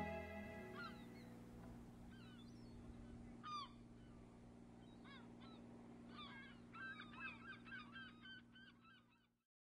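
Faint honking bird calls, the water-bird kind, scattered at first and then coming thick and fast in the last few seconds, over a low steady hum. All of it cuts off shortly before the end.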